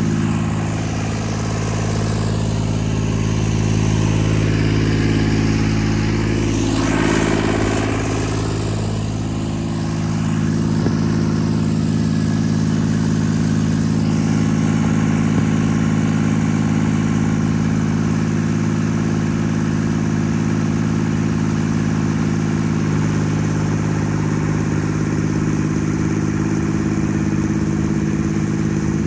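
Carlton SP 7015 TRX tracked stump grinder's engine running steadily. Its pitch dips and recovers about seven to nine seconds in, and its tone changes slightly about twenty-three seconds in.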